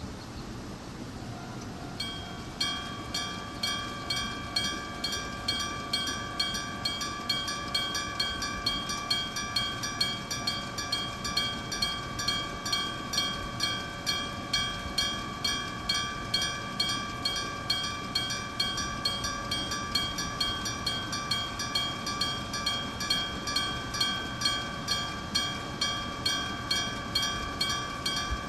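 Iron electromechanical bell (denshō) of a railway level-crossing signal ringing: evenly spaced strikes, about one and a half a second, each leaving a lingering metallic ring. It starts about two and a half seconds in, and it is the crossing warning for an approaching train.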